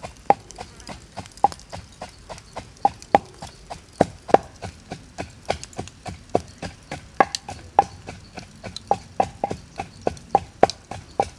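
Charcoal fire crackling, with sharp pops and snaps coming irregularly several times a second.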